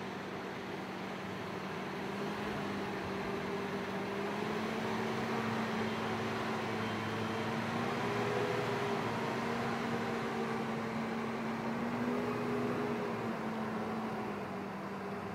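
Freightliner M2 106 street sweeper truck driving slowly past, its engine and sweeper machinery giving a steady drone with a hum that rises slightly in pitch about four seconds in. It is loudest in the middle as the truck passes and eases off near the end.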